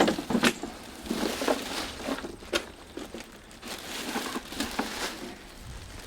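Cardboard box and plastic packaging rustling and crinkling, with irregular knocks and scrapes, as an electric pressure washer is pulled out of its box.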